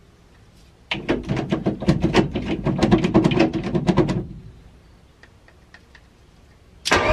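A 1.8T four-cylinder engine cranking on its starter motor for about three seconds, turning over in even pulses, about six or seven a second, without catching: the fuel pump isn't running. A second crank begins near the end.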